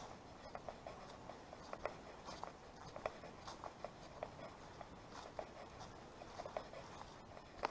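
Faint footsteps crunching and scuffing on a path strewn with dry fallen leaves, with small crackles a few times each second.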